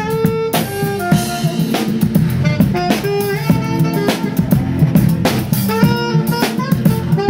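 Live jazz: a saxophone plays a melody of short and held notes over a drum kit keeping time with cymbals and snare.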